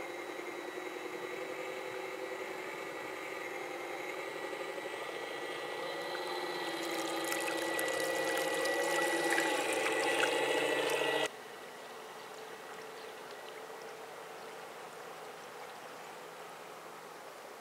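Electric drive motor and propeller of an Aquacraft Rescue 17 radio-controlled fire boat whining steadily over the sound of water, growing louder as the boat approaches, with splashing near the loudest point. About two-thirds through, the whine drops suddenly to a faint steady hiss.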